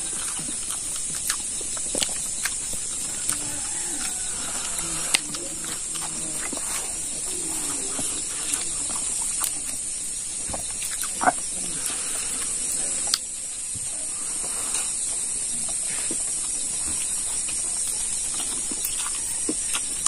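Close-up eating sounds: chewing and lip-smacking on stewed pig trotter and rice eaten by hand, with scattered small clicks and a louder smack about eleven seconds in, over a steady high hiss.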